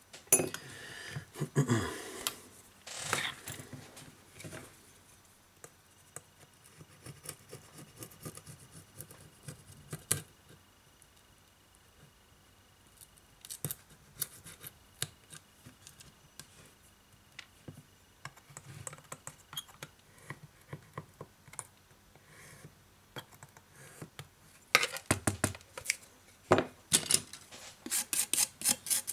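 Scraping and scratching on a smartphone's frame: louder rubbing and handling in the first few seconds, then scattered short scalpel-blade scrapes, then a brush scrubbing the frame edge in quick repeated strokes over the last few seconds.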